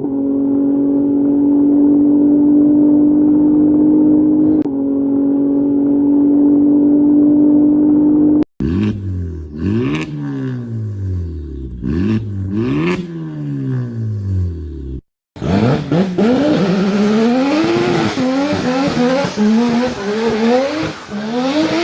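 A run of cartoon sound effects: a steady engine drone for about eight seconds, then a wail that falls and rises in pitch about every two seconds, then after a short break a faster wavering, gliding tone.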